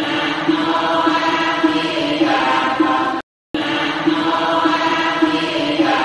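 Buddhist chanting: a steady-pitched vocal phrase repeated over and over, broken by a brief cut to silence about three seconds in before it starts again.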